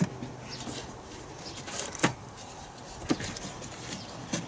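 A few separate sharp clicks and knocks of hard plastic engine-bay trim being handled and set down, the loudest about two seconds in.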